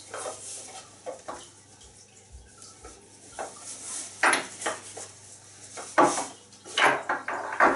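Parts of an ice chisel, a wooden handle and a steel shaft, knocking and clinking against each other and the table as they are packed into a fabric carry case, with rustling of the case. A few light knocks at first, then louder, more frequent clinks in the second half.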